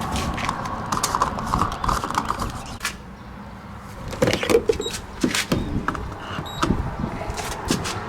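Handling noises inside a stopped car: scattered clicks, knocks and rattles, with a few brief pitched squeaks about four seconds in.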